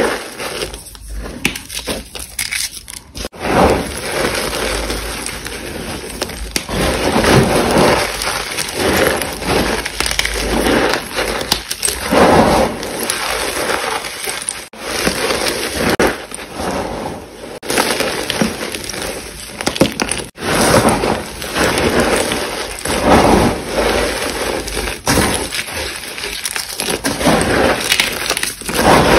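Reformed gym chalk and sticks of school chalk being crushed and crumbled by hand, with repeated crunching strokes one after another.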